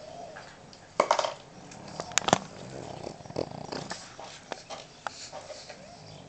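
Pug snuffling and snorting in irregular bursts, loudest about a second in, with a few sharp clicks a little after two seconds.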